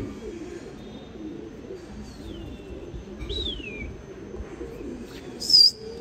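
Domestic pigeons cooing steadily. High chirps slide down in pitch about two and three seconds in, and a short, sharper high chirp about five and a half seconds in is the loudest sound.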